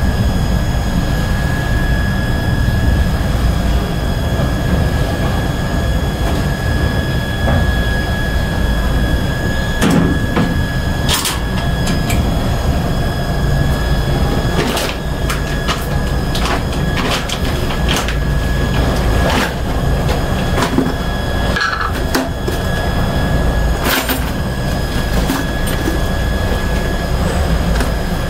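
Steady low rumble with a thin, constant high whine in an elevator machine room. Scattered sharp clicks and taps come through as hands work the wiring and parts of the elevator control cabinet.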